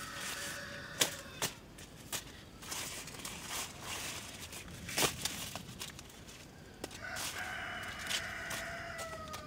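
Rooster crowing: the end of one crow about a second in, then one long crow near the end that falls slightly in pitch. A few sharp knocks or snaps come in between.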